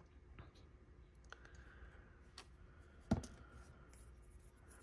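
Faint scattered clicks and taps from handling a plastic glue bottle and rhinestone-setting tools, with one sharper knock about three seconds in.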